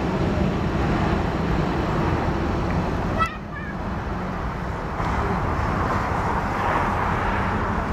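Jet airliner's engines running steadily at taxi power, a rumble with a low hum. A sharp click about three seconds in, after which the sound is quieter for about two seconds before coming back up.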